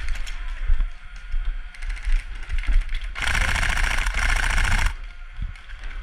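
Airsoft electric rifle firing on full auto: a fast rattling burst about three seconds in that lasts nearly two seconds, after a run of scattered clicks and knocks.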